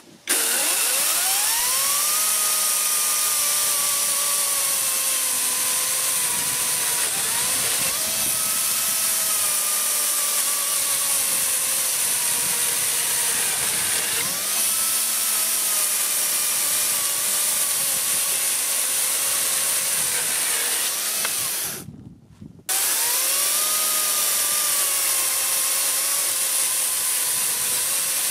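Parkside Performance PPKSA 40-Li A1 40 V brushless cordless chainsaw cutting through a softwood beam. Its whine jumps up as the motor spins up, then sags slowly in pitch under load as the chain works through the wood. This happens four times, with a brief cut-out near three-quarters through before it starts again.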